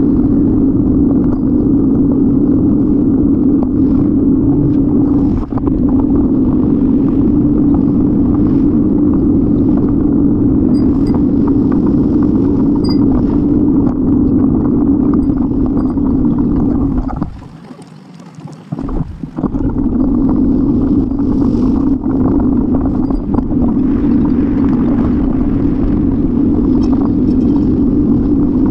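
Steady rumble of wind and road noise on a bicycle-mounted camera's microphone while riding. It dies away briefly about 17 seconds in, then comes back.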